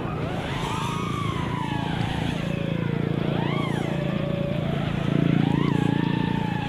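Brushless motors and folding propellers of an FPV quadcopter (iFlight Xing-E 2207 motors), heard from its onboard camera. The whine rises and falls with the throttle, with sharp swoops up and back about three and a half seconds in and again near six seconds, over a steady low rush of prop wash and wind.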